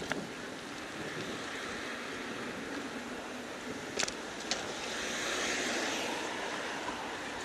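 Outdoor street ambience recorded from a moving bicycle: a steady rush of traffic and wind on the microphone, with a few sharp clicks about four seconds in and the rushing noise swelling louder for a couple of seconds after that.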